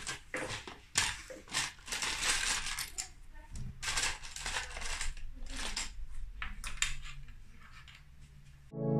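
Loose LEGO bricks clattering and rattling in a plastic tub as a hand rummages through them for pieces; the clatter thins out and stops near the end.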